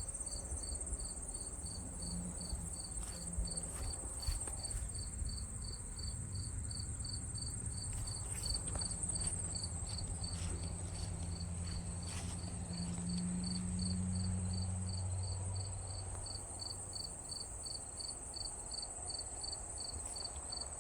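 Insects chirping: one cricket-like chirp repeating evenly about two or three times a second, over a continuous higher-pitched insect trill. A low hum rises and fades in the middle.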